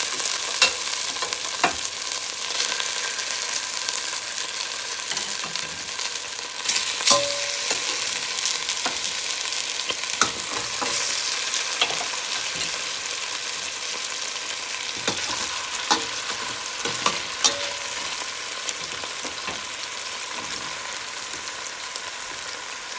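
Browned chicken drumsticks sizzling in hot oil in a stainless steel pot, a steady hiss, with scattered sharp clicks and knocks as more drumsticks are set in against the metal.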